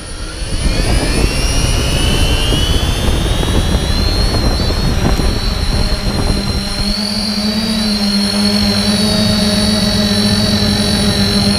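Multicopter drone's electric motors and propellers spinning up and lifting off: a high whine that rises in pitch over the first few seconds, then holds steady as the drone climbs and flies, with a constant rushing noise underneath.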